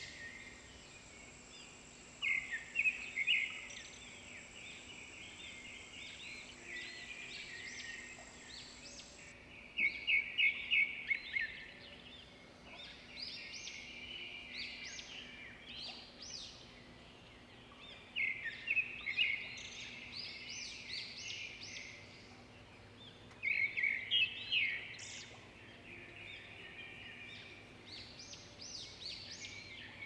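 Several songbirds singing. A phrase of quick, repeated high notes comes back about every six to eight seconds, with softer chirping in between.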